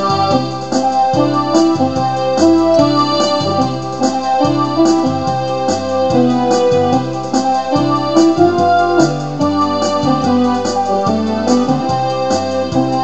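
Electronic keyboard playing a tune with a steady drum beat of about two strokes a second under a bass line and chords.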